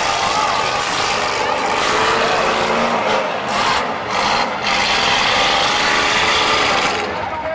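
Engines of several demolition derby cars running and revving, a loud, rough and continuous noise that turns duller abruptly near the end.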